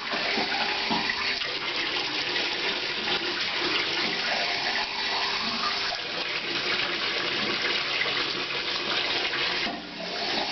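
Water running steadily into a bathtub; the rush dips briefly near the end.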